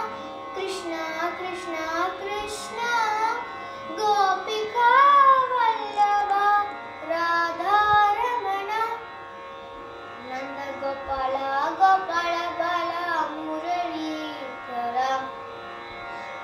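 A young girl singing a devotional song to Krishna solo in Carnatic style, her voice winding through ornamented pitch glides, with a brief lull between phrases about ten seconds in.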